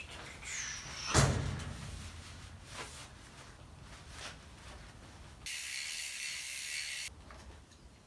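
Handling and wiping down a mountain bike clamped in a repair stand: a brief squeak, then a loud knock about a second in, a few lighter clicks, and a steady high hiss lasting about a second and a half that starts and stops abruptly.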